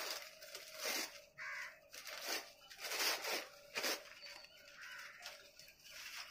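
Puppies yelping and crying: about six short, high-pitched cries, most of them in the first four seconds, then quieter whimpering.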